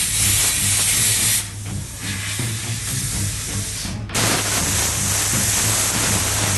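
A steady, loud hiss over a low hum. The hiss breaks off about one and a half seconds in and starts again about four seconds in.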